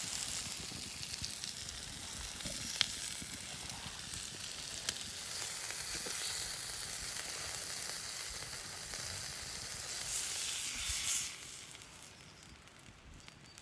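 Lamb pieces frying on a hot stone over a wood fire: a steady sizzle with two sharp pops, dropping away sharply about eleven seconds in.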